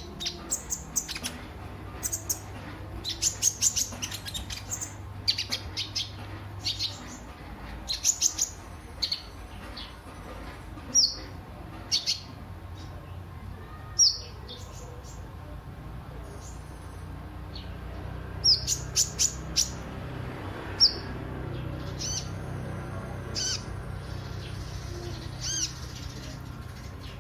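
Kolibri ninja sunbird calling: short, high, sharp chirps and quick down-slurred notes, delivered in clusters with pauses between them, over a faint low hum.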